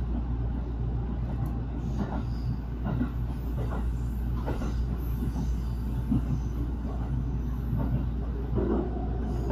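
Running noise of a train carriage in motion: a steady low rumble from the wheels on the rails, with faint clicks every second or so.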